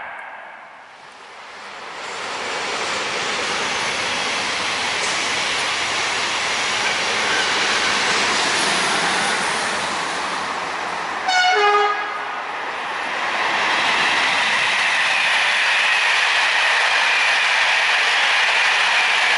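Passenger train of Corail coaches hauled by a BB 7200R electric locomotive approaching and passing, its rolling noise building steadily. A little over halfway through, the locomotive sounds one short horn blast, and the louder rolling of the coaches going by follows.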